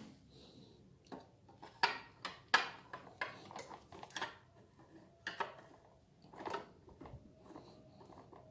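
Allen key clinking and scraping against the bolts and metal housing of a backpack brush cutter's engine as it is fitted and worked to undo a bolt: an irregular string of sharp metallic clicks and knocks, loudest two to three seconds in.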